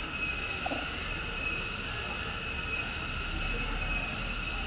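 Cicadas singing: a steady, high-pitched drone made of several unchanging tones.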